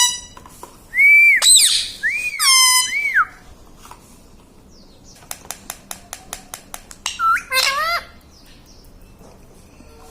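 Pet parrot giving several loud whistled calls that sweep up and down in pitch, in the first three seconds and again about seven seconds in. Between them comes a quick run of about ten sharp clicks.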